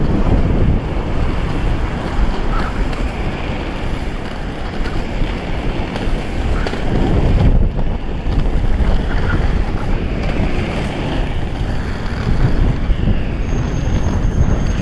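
Wind buffeting a GoPro Hero3's microphone at downhill skating speed, a dense rumbling rush that swells and eases in gusts, mixed with the roll of a Stereo Vinyl Cruiser skateboard's wheels on asphalt.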